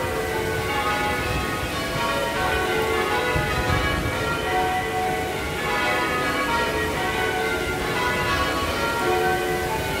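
The Swan Bells of Perth's Bell Tower ringing changes: many tuned church bells struck one after another in quick, overlapping succession, a continuous peal with no pause, over a steady splash of fountain water.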